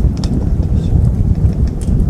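Wood fire crackling in a folding wood stove, with two sharp pops, over a steady low rumble.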